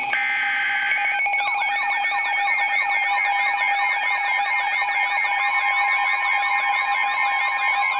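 Electronic alert alarm tones: a steady high tone, then from about a second in a rapid yelping run of repeated falling sweeps, layered over a steady lower tone.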